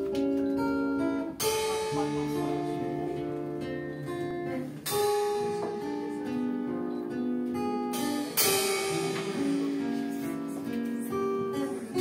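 Live band playing: strummed acoustic guitar over held chords and drums, with a sharp ringing accent about every three and a half seconds.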